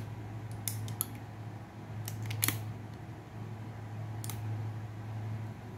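Sharp metallic clicks of a Philippine-made .22 Magnum revolver's action as the hammer is cocked: about five clicks spread out, the loudest a double click about two and a half seconds in. A steady low hum runs underneath.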